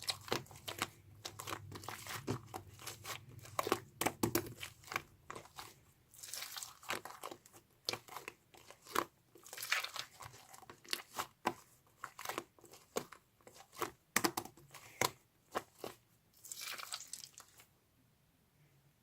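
Crinkling and crackling handling noise: a run of sharp clicks and crackles with a couple of longer rustling bursts, stopping shortly before the end.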